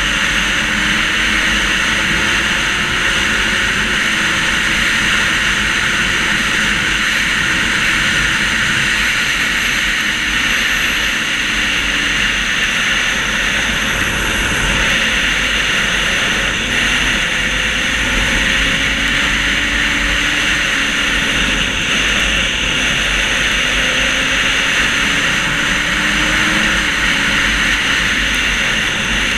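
Motorcycle ridden at a steady cruise: a continuous rush of wind noise on the onboard microphone over the engine's hum, whose pitch drifts gently up and down with the throttle.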